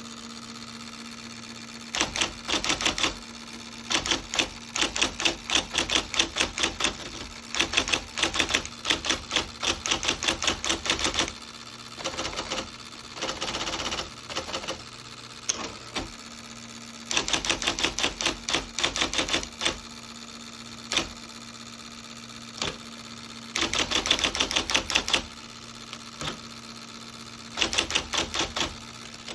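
IBM Selectric II electric typewriter typing in quick runs of keystrokes, a rapid clatter of strikes lasting a second to a few seconds each, with short pauses between runs. Under it the machine's motor hums steadily.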